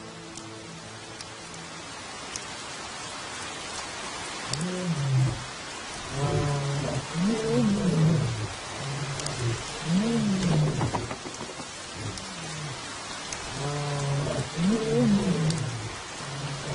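Steady rain, and from about four seconds in lions roaring in a series of low calls, each rising and then falling in pitch, repeated every two seconds or so.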